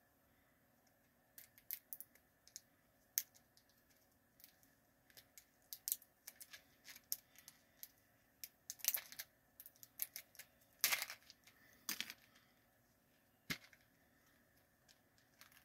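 Red plastic candy tube being handled and its flip-top cap picked at with the fingers: scattered faint clicks and ticks of plastic, with a couple of longer scratchy rustles around the middle.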